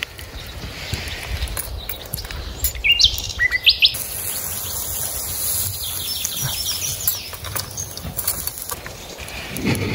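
Small birds chirping a few times about three seconds in. From about four seconds in, a steady high hiss runs until nearly nine seconds: beef patties sizzling on a wire grill over charcoal.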